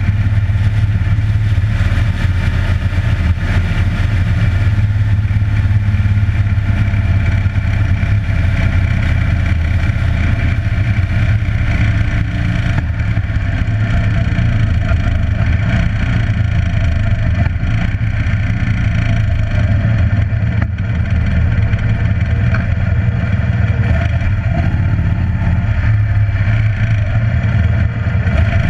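Harley-Davidson Electra Glide's V-twin engine running steadily at cruising speed, with road noise, heard from on the moving motorcycle.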